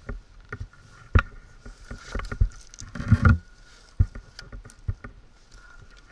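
Boots crunching and scuffing on loose rocks and gravel, with irregular knocks and thumps as a rider moves a dirt bike on foot over a rocky slope. A louder crunching scrape comes about three seconds in.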